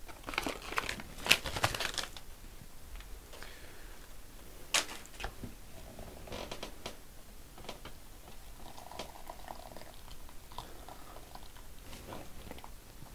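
Foil ration packets crinkling and rustling during the first two seconds, then a sharp click and a few faint handling sounds.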